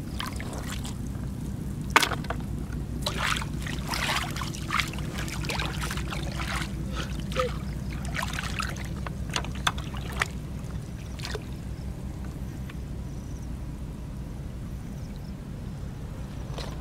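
Shallow seawater splashing and trickling as hands and rubber boots move through it while razor clams are scooped up, in irregular short splashes with a sharp knock about two seconds in, thinning out in the second half. A steady low hum runs underneath.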